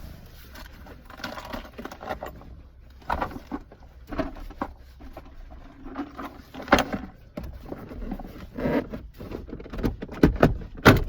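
Irregular clicking, knocking and rustling of a screwdriver and hands working at the plastic lower dash trim inside a pickup's cab, with two sharper knocks, one about seven seconds in and one near the end.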